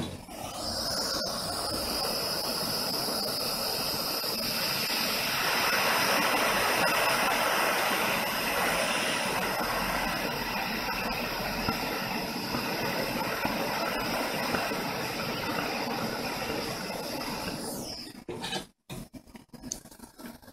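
Gas soldering torch lit with a sharp click, then burning with a steady hiss and a constant high whistle for about eighteen seconds while heating copper pipe joints, before the whistle slides away and the flame is shut off.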